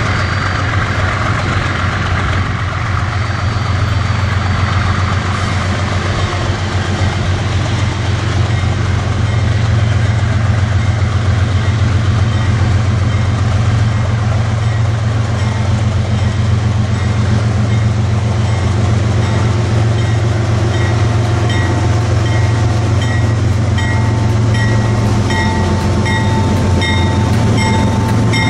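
GE ES44ACi diesel-electric freight locomotives approaching and passing with a steady, deep engine drone that grows louder about a third of the way in. A regular clicking from the wheels joins in during the last third as the locomotives come alongside.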